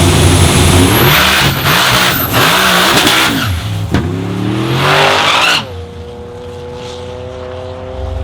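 Turbocharged 427 LSX V8 drag car running hard, its engine pitch sweeping up and down several times. About five and a half seconds in it drops suddenly to a much quieter, steady running note.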